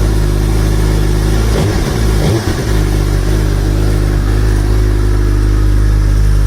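Suzuki Hayabusa Gen 3's 1340 cc inline-four on its stock exhaust, idling steadily, with the engine note wavering briefly about two seconds in.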